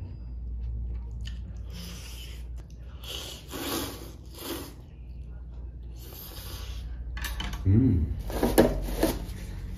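A person slurping jjamppong noodles from a bowl in several noisy pulls a second or two apart. A short voiced sound comes near the end and is the loudest moment.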